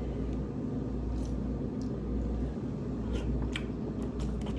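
Quiet eating sounds: a few faint clicks and squishes as king crab meat is handled and eaten, over a steady low hum.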